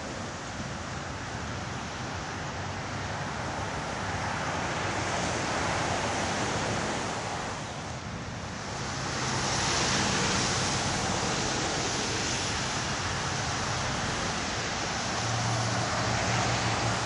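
Gusty storm wind rushing over the microphone as a steady noise that swells and eases, dipping briefly about eight seconds in.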